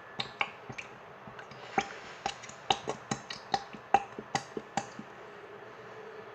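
Slime being mixed or handled, giving a run of sharp, irregular clicks and pops, about two to three a second, that fade out near the end.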